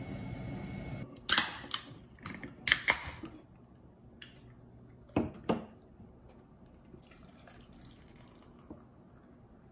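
Background music ends about a second in, then a quick series of sharp clicks and clatters, two duller knocks a few seconds later, and faint room tone with a steady high whine.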